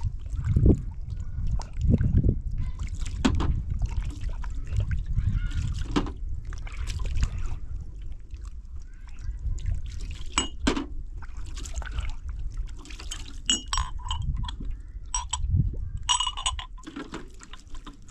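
Water being poured and splashed over a steady low rumble, with a few short ringing clinks about three-quarters of the way through.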